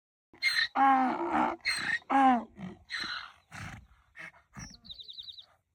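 Donkey braying: a run of hee-haw calls, alternating hoarse high in-breaths and lower out-breaths, loudest at first and dying away over about four seconds. A short fast high trill comes near the end.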